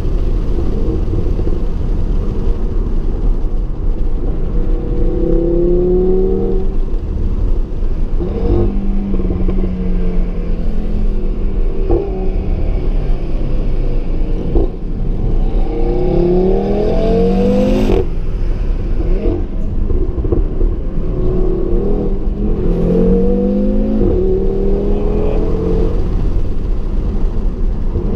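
2017 Audi TT RS's turbocharged 2.5-litre five-cylinder engine pulling through the gears, its pitch rising again and again with short breaks at the gear changes. A single sharp crack cuts through about two-thirds of the way in.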